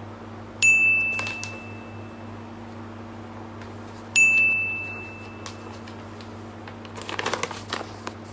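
Two identical bright dings about three and a half seconds apart, each starting sharply and ringing out for over a second. Near the end comes a short run of clicks and rattles, with a steady low hum throughout.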